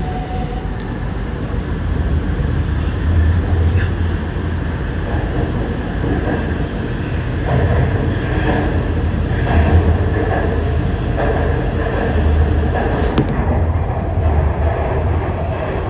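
Shenzhen Metro Line 1 train running between stations, heard from inside the car: a steady heavy rumble of wheels on track that swells and eases, with a faint steady high whine above it.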